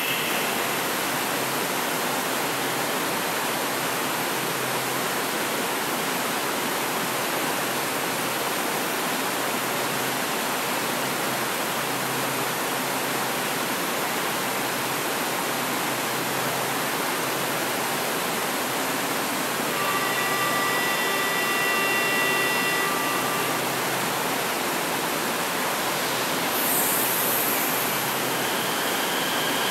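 Steady rushing hiss of ventilation and stationary train equipment in an underground metro station, with Series 500 metro trains standing at the platforms. About two-thirds of the way in, a steady multi-note electronic tone sounds for about three seconds, and a brief high hiss follows near the end.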